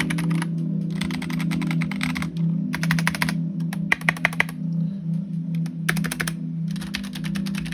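Mechanical keyboard being typed on: quick runs of key clicks broken by short pauses, with a few single keystrokes about four seconds in.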